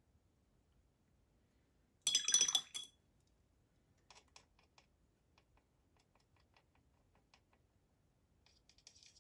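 Paintbrush rattling and clinking against a glass water jar for just under a second about two seconds in, with a short high ring, then scattered faint light ticks and taps.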